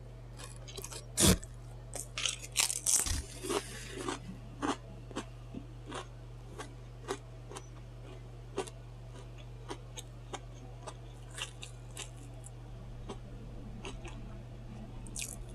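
Close-miked crunching and chewing of baked potato chips: a cluster of loud crunches in the first few seconds, then softer, sparser chewing clicks. A steady low hum runs underneath.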